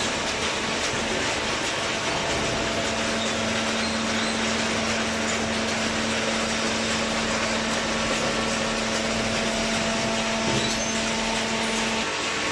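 Hydraulic paper baler running: a steady mechanical din with a low, even hum that sets in about two seconds in and drops out shortly before the end.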